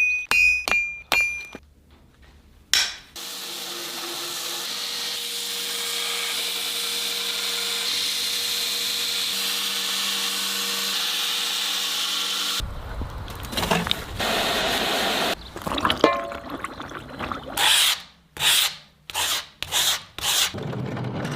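Rhythmic hammer blows ringing on steel for about a second, then a power grinder running steadily for about nine seconds. After that come irregular rubbing and scraping strokes of hand finishing on the metal, quickening to about two a second near the end.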